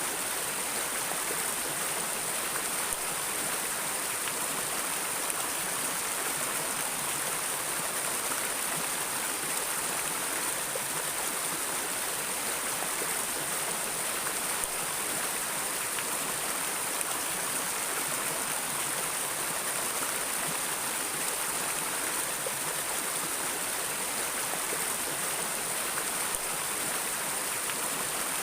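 Flowing water of a stream or river, a steady, even rush with no pauses or changes.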